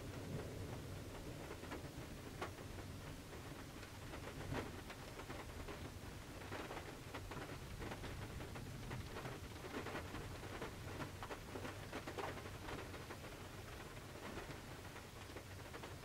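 Rain pattering on the roof and rear glass of a Toyota 4Runner, heard from inside the cargo area: scattered drop ticks over a soft hiss. The last of a thunder rumble fades out in the first second.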